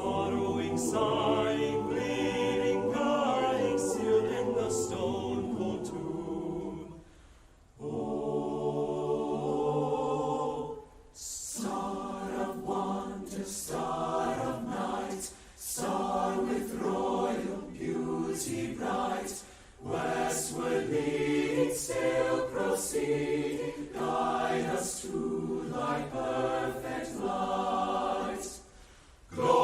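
A choir singing, in phrases of a few seconds broken by short pauses.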